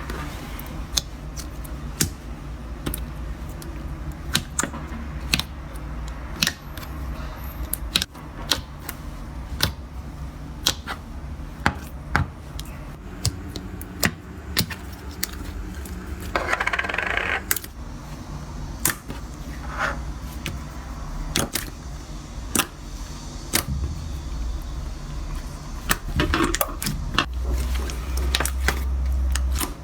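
Hands working slime and clay materials: irregular sharp clicks and taps, roughly one a second, with a short rustling squish about halfway through, over a low steady hum.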